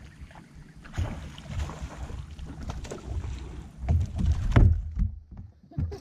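Hooked largemouth bass splashing at the surface as it is reeled in. Then it is swung aboard and flops with several loud thumps on the boat's deck a little after four seconds in.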